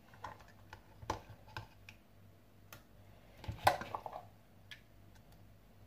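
A spoon scraping and clicking against a hand-blender chopper bowl as thick, wet blended vegetable paste is scooped out, with soft squelches. Scattered light scrapes, with a louder cluster of knocks and scrapes a little past halfway as the chopper blade is pulled out of the paste.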